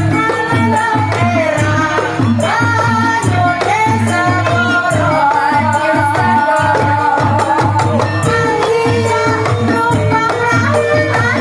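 Music with a wavering, sliding melody over a steady, fast drum rhythm.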